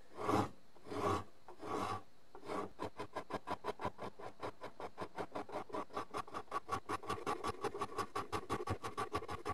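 Surform rasp shaving the edge of a basswood bass guitar body, cutting aggressively. A few slow, separate strokes come first, then from about three seconds in quick short strokes at about five a second.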